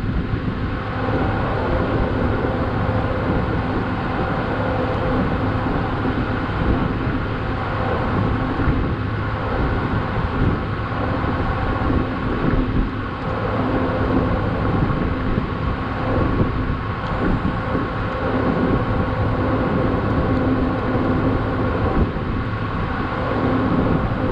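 A 4x4's engine idling steadily, with wind buffeting the microphone.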